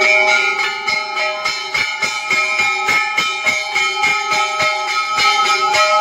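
Temple bells ringing without pause during aarti, a dense clangour of ringing tones over a fast, steady beat of strikes, about three a second.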